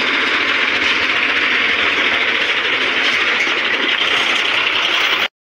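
Heavy truck running close by: a loud, steady mechanical noise that cuts off suddenly near the end.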